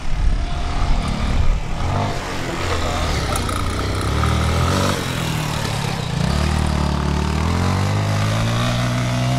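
Off-road motorcycle engine revving up and down as the bike rides a motocross course, its pitch climbing steadily over the last few seconds.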